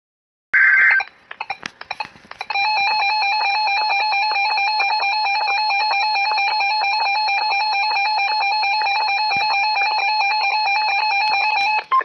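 Emergency Alert System attention signal: a loud, steady, harsh electronic alert tone that sounds for about nine seconds and cuts off just before the end. It is preceded about half a second in by a short, shrill electronic burst and a run of clicks.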